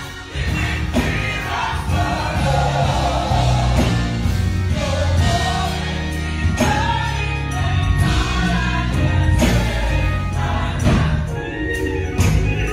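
Gospel choir singing live, with a strong bass accompaniment underneath.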